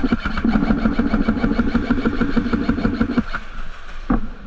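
Airsoft electric gun (AEG) firing a long full-auto burst: rapid, evenly spaced shots over the steady whine of its motor and gearbox, stopping about three seconds in. A single knock follows near the end.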